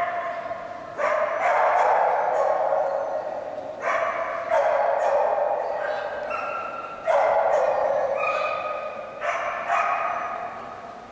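A dog barking repeatedly during an agility run, in loud sudden bursts that echo and die away in a large indoor hall.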